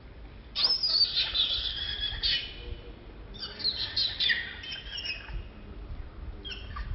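Birds chirping: two bursts of many high, quick calls, starting about half a second in and again about three seconds in, with a shorter burst near the end.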